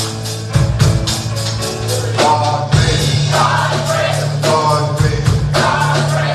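Gospel church music with a steady percussion beat and bass, and singing voices coming in about two seconds in.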